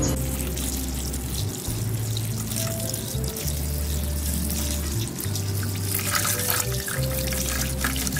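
Water splashing and sloshing as a hand swishes whole bitter gourds around in a steel bowl, with the splashing strongest about six seconds in. Background music with a slow bass line plays throughout.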